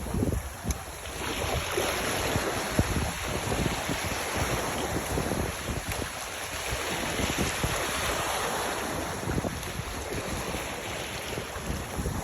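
Wind buffeting the microphone over a steady rush of waves.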